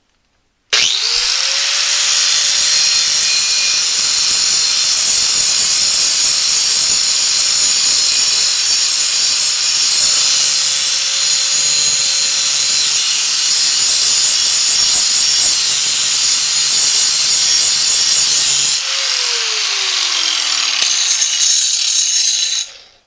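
Electric angle grinder starting up about a second in and grinding the steel edge of a lawn mower blade, a steady loud grinding that is a little loud. Near the end it is switched off and winds down with a falling whine.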